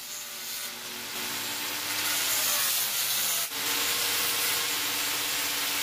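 Angle grinder running with its disc cutting: a loud, steady hiss with the motor's whine underneath. It breaks off for an instant about three and a half seconds in, then carries on.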